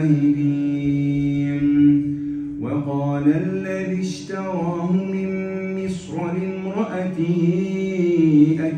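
A solo male voice chanting Quran recitation in a slow, melodic style. It holds one long note for about the first two and a half seconds, then moves through phrases that rise and fall.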